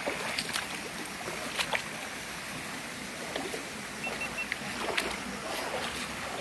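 Steady rush of a rocky forest stream, with scattered clicks and crunches of footsteps on stones and gravel.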